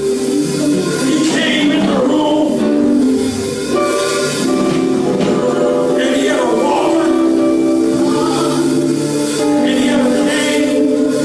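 Live gospel music: voices singing over sustained accompanying chords.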